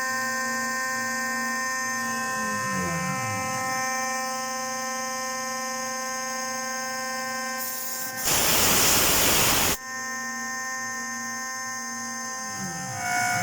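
Home-made CNC column milling machine running with a steady electric whine and hum. Its motor pitch sweeps down and back up as an axis moves, about two to three seconds in and again near the end. About eight seconds in, a loud hissing noise lasts a second and a half and cuts off suddenly.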